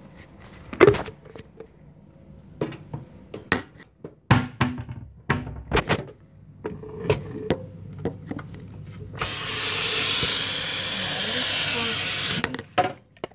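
Kitchen things knocked and handled on a counter, a string of sharp clatters, then a loud steady hiss that starts suddenly about nine seconds in and cuts off about three seconds later.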